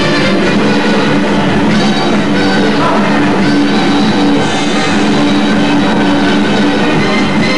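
Loud rock-style music.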